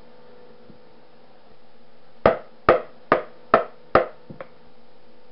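Five quick, sharp knocks about 0.4 s apart, then two light ones: a stick blender rapped against the rim of a plastic mixing bowl to knock off clinging soap batter.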